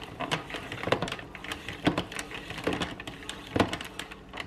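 Hand-cranked rotary drum grater shredding frozen butter: a steady run of clicks and rattles from the turning crank and drum, with a louder knock about once a second.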